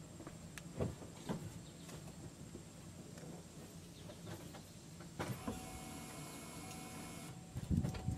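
Front wheel of a car being steered straight while it hangs off the ground without its tyre: a few scattered knocks, then a steady mechanical whine of about two seconds starting some five seconds in, and louder knocks near the end.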